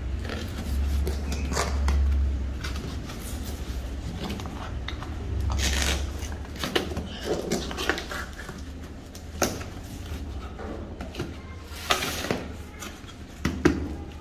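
Irregular knocks, clicks and rustles of things being handled and set down, over a low rumble.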